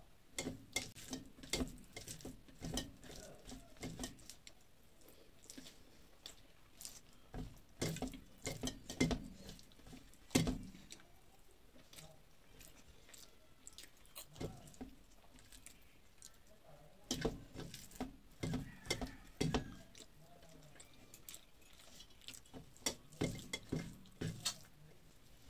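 Close-up eating sounds: wet clicks and smacks of chewing and swallowing mouthfuls of rice and vegetables eaten by hand, coming in runs of a few seconds with short pauses between.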